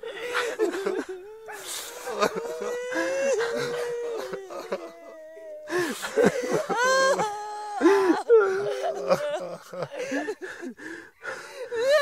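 A group of men and women crying and sobbing together. Several voices overlap in long, wavering wails, broken by wheezy, gasping breaths.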